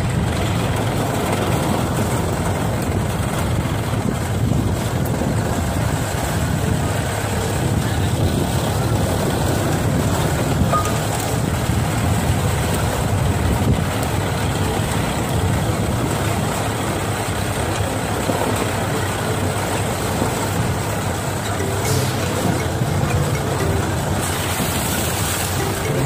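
Off-road vehicle driving over a dirt track: steady engine and tyre noise, with no break or change in speed.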